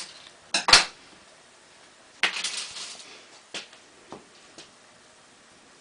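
Small metal tools and parts clinking and clattering on a workbench as they are handled: a sharp double knock about half a second in, a rattling clatter a little after two seconds, then three lighter clicks.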